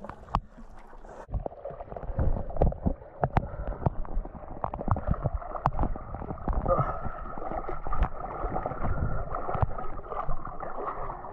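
Shallow stream water sloshing and gurgling around a person wading in it, broken by many short clicks and knocks as a bucket and a handful of live crayfish are handled.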